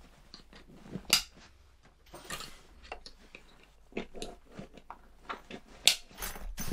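A soft-sided canvas cooler being handled on a table: a scattering of sharp clicks and knocks with short rustling scrapes of its stiff shell, the loudest click about a second in.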